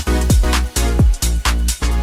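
Bass-boosted electronic dance music: heavy sub-bass under a pounding kick drum that hits about two to three times a second, each hit dropping in pitch, with bright percussion on top.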